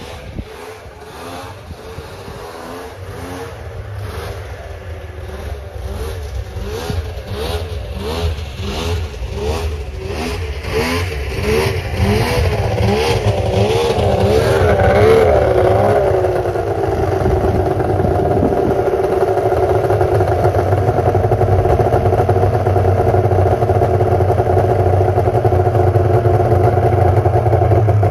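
1996 Arctic Cat ZRT 600 snowmobile's three-cylinder two-stroke engine warming up just after a cold start at minus ten degrees. Its speed surges up and down in a regular loping rhythm as it grows louder. About sixteen seconds in it settles into a steady, even idle.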